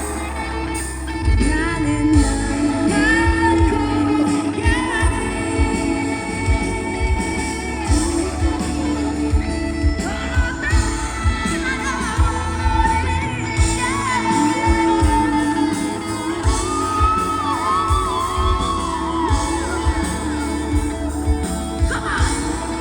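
Live rock band performance: a lead vocal sung over the full band, with a steady drum beat.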